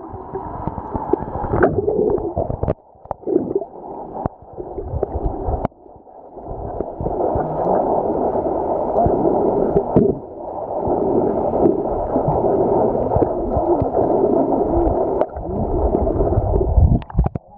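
Muffled underwater water noise picked up by a submerged camera: gurgling and sloshing that dips briefly about three seconds in and again about six seconds in.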